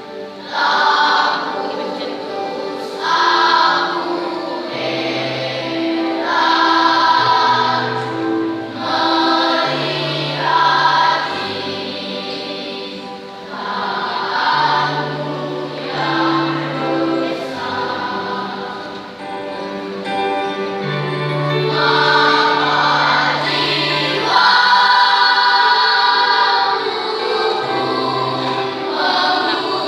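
Church choir singing a gospel song in several parts, phrase after phrase with short breaths between.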